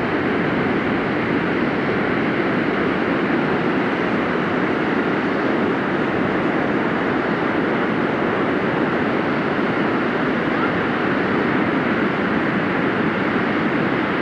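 Wind blowing steadily over the microphone: an even rushing noise with no breaks.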